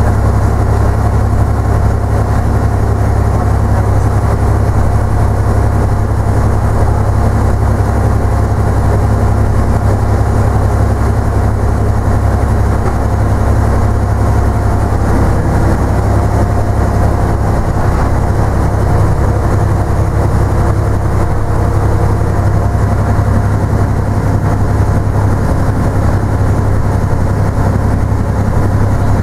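Leyland Titan PD2 double-decker bus's six-cylinder diesel engine running under way, a deep steady drone heard from inside the upper deck.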